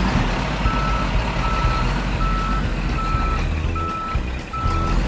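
Truck reversing alarm beeping at an even pace, about six single-pitched beeps starting about half a second in, over a steady low engine rumble.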